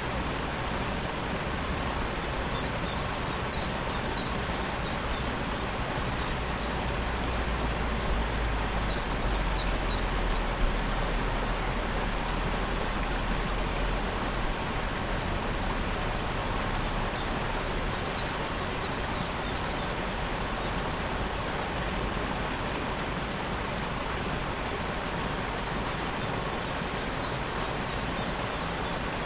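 Steady rush of falling water from a waterfall, with a small bird calling in short runs of rapid, high-pitched chirps four times.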